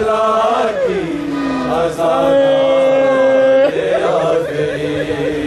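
Men's voices chanting a noha, a Shia lament, unaccompanied. The line falls in pitch about a second in, then holds one long steady note before moving on again.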